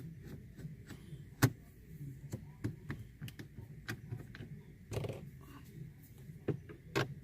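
Scattered clicks and taps of a Phillips screwdriver turning out screws from a car's plastic dashboard trim, with sharper clicks about a second and a half in, around five seconds and near the end, over a steady low hum.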